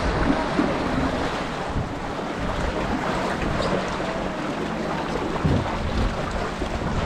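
Wind buffeting the microphone over the steady rush of river water, with a faint steady hum underneath.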